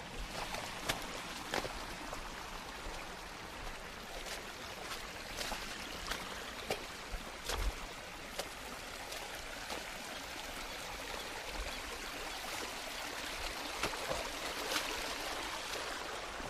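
Water running steadily, the even rush of a flowing stream, with scattered sharp ticks through it.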